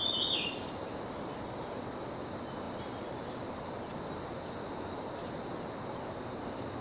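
Steady outdoor background hiss with a faint high steady tone, and a short high chirp right at the start.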